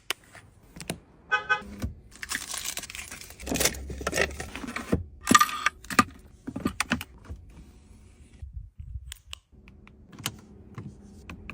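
Unboxing handling: packaging rustling with scattered clicks and rattles of small hard items. There is a brief squeak about a second and a half in.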